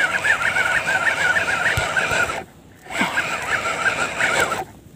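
Spinning reel being cranked fast to reel in a hooked fish: a rapid, even whirring pulse of about six beats a second. It stops for about half a second around two and a half seconds in and again near the end.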